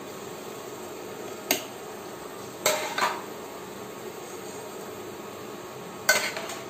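Steel ladle clinking against a stainless-steel mixer-grinder jar about four times as cooked tomato is spooned in, the first clink about a second and a half in and the last near the end. A steady faint hum runs underneath.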